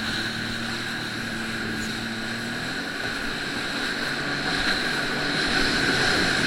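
Jet ski engine running under way, a steady drone with a constant high whine, growing louder about halfway through.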